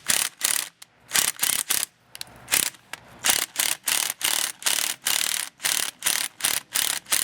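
Cordless battery impact wrench hammering in short bursts, about three a second, rocking a broken-off bolt back and forth to work it loose.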